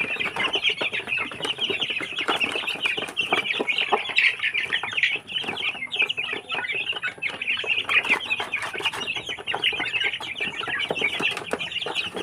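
A flock of young Barred Plymouth Rock chickens and chicks peeping and clucking continuously while they feed, a dense stream of short high cheeps, with frequent sharp taps of beaks pecking feed from plastic trays.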